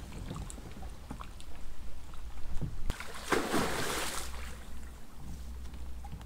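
Water sloshing and splashing around a person moving in it, with one louder splash-like rush about three seconds in that lasts about a second. A steady low rumble runs underneath.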